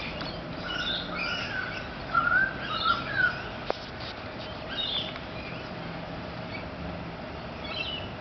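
Currawongs and butcherbirds calling: short, warbled, fluted whistles with higher chirps scattered through, loudest about two to three seconds in. A single sharp click comes near the middle.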